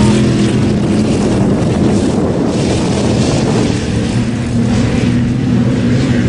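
Pickup truck's V8 engine running hard off-road, a loud steady drone held at nearly constant pitch.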